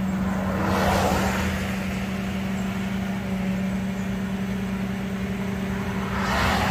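Flatbed tow truck's engine idling with a steady hum. Cars pass on the road about a second in and again near the end.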